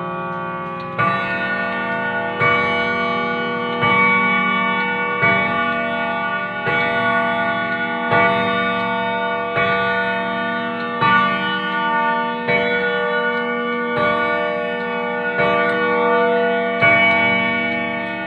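Junghans German grandfather clock striking the hour on its gong: twelve strokes about one and a half seconds apart, each ringing on long into the next.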